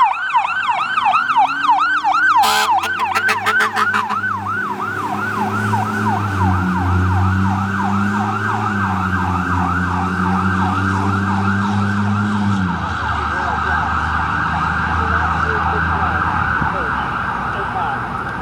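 Fire engine siren on the yelp setting, a fast rising-and-falling wail about four times a second, on a 2005 Ferrara Igniter. From about two seconds in, the truck's air horn joins with a low, held blast that wavers in pitch and cuts off abruptly about two-thirds of the way through.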